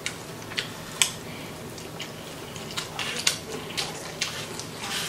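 Eating sounds: chewing and lip-smacking on a mouthful of fried rice, with a metal spoon scraping and tapping in a foam takeout container. Irregular short, sharp smacks and clicks, the sharpest about a second in and again a little after three seconds.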